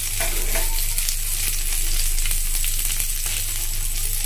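Chicken and vegetable kebab skewers sizzling in hot oil on a flat tawa griddle, a steady crackling hiss. A metal spatula scrapes the griddle a few times in the first second as the skewers are turned.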